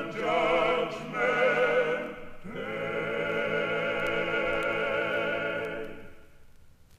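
Male vocal quartet of tenors, baritone and bass singing the final line of a spiritual, closing on one long held chord with vibrato that dies away about a second before the end.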